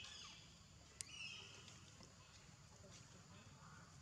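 Quiet outdoor ambience: a sharp click about a second in, followed by a short high-pitched call.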